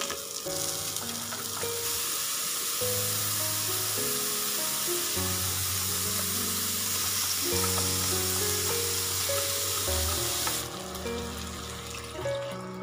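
Quinoa and mixed vegetables sizzling in oil in an electric pressure cooker's inner pot, a steady hiss that drops away about three-quarters of the way through. Background music plays throughout.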